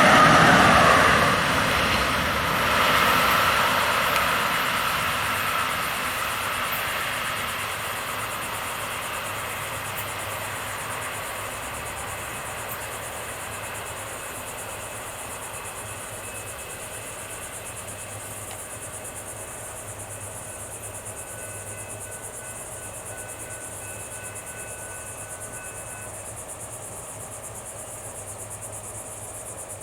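A train's engine and rumble fading away into the distance over several seconds, leaving a steady chorus of insects.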